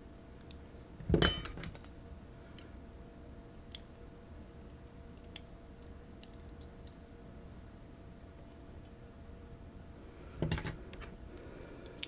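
Small metal parts of a disassembled high-security lock cylinder clinking as they are handled. One sharp, loud clink with a brief ring comes about a second in, then a few faint ticks, and a short clatter near the end.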